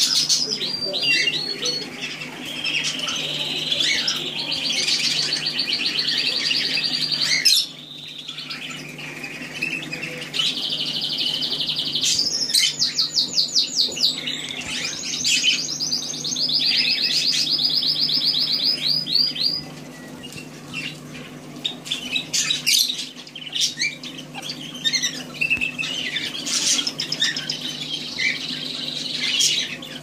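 Budgerigars chattering: runs of fast, rapidly repeated chirps mixed with sharper single calls, dropping away briefly a couple of times.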